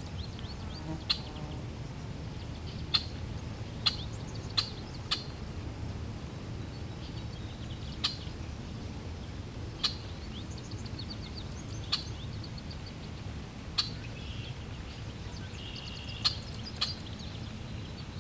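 Small birds chirping, with a sharp chirp roughly every two seconds and softer twittering between, over a steady low rush of flowing water.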